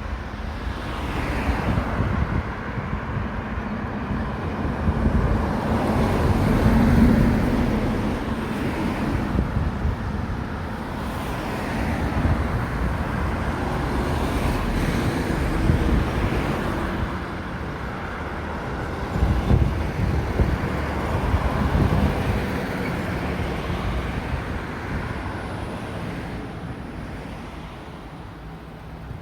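Road traffic on a busy highway: vehicles passing one after another, the noise swelling as each goes by and fading to a quieter hum near the end.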